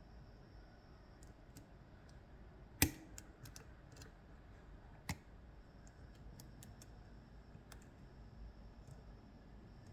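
Small metallic clicks and ticks of lock picking tools working the pins inside an Ezcurra DS-10 lock, with one sharp, louder click about three seconds in and another about five seconds in.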